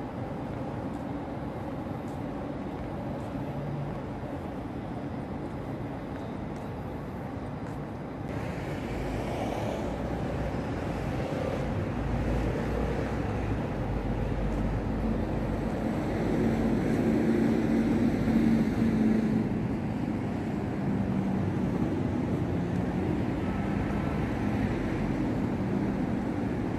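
City traffic noise: cars and buses running along a busy road, getting louder about a third of the way in. An engine hum is at its loudest about two-thirds of the way through.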